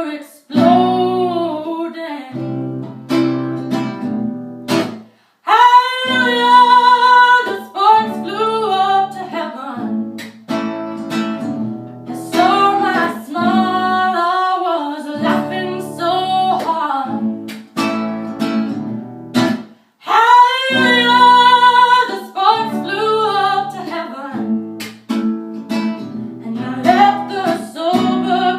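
A woman singing a folk song over a strummed acoustic guitar, with long held notes about six seconds in and again near the end.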